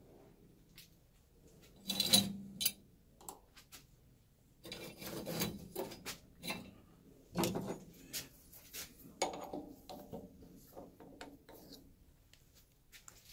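Workshop handling noise around a small metal lathe: scattered knocks, clinks and rubbing of metal tools and parts, the loudest about two seconds in and a cluster of them between about five and eight seconds.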